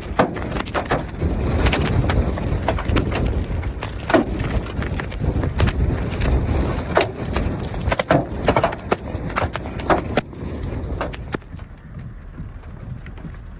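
Large hailstones striking a vehicle and the ground in sharp, irregular knocks over a steady rush of wind and falling hail. The hitting thins out and grows quieter about ten seconds in.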